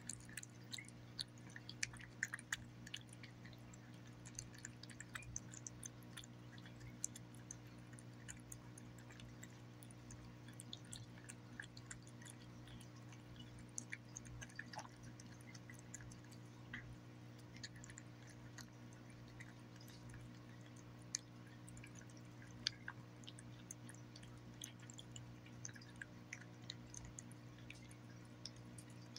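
Cat chewing and lapping juicy roast beef from a bowl: faint, irregular wet clicks and smacks, over a steady low hum.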